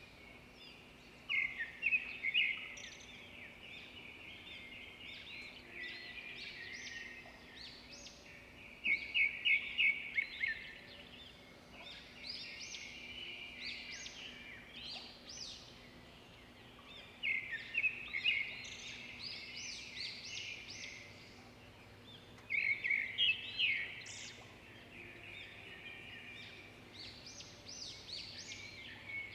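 Small birds chirping in repeated bursts of rapid, high trills a few seconds apart, over a faint steady hum.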